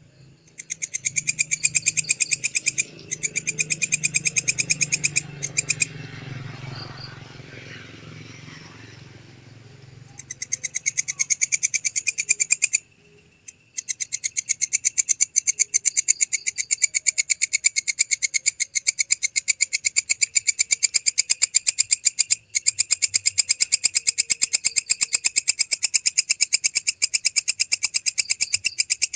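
Walang kecek katydid stridulating: a loud, fast run of sharp high-pitched ticks in long trains, breaking off briefly a few times, with the longest pause about a third of the way in, where only a fainter low hum and hiss remain.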